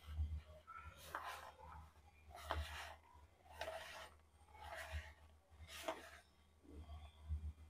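Hand kneading a stiff bhakhari dough of coarse wheat flour, oil and water in a plastic bowl: faint squishing, rubbing strokes about once a second, with soft low thumps under them.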